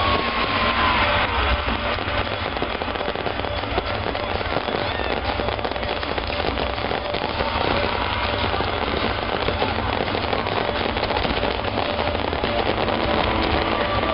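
Fireworks display crackling and popping densely and without pause, with a few whistling tones gliding through.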